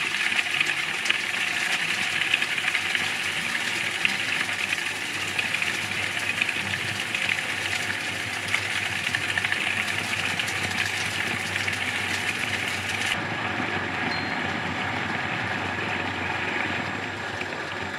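Small bowl cutter running steadily, its blades chopping beef and ice into sausage meat during the cutting stage of Brühwurst making. The hissy upper part of the sound drops away sharply about two-thirds of the way in, and the sound eases slightly near the end.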